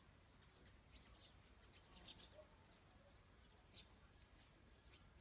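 Faint bird chirps: short high notes repeated irregularly, several times a second, over quiet background hiss.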